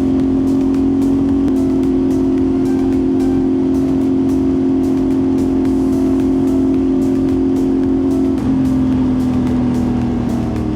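CFMOTO 450SS parallel-twin engine running steadily while the motorcycle is ridden, its pitch dropping lower about eight seconds in.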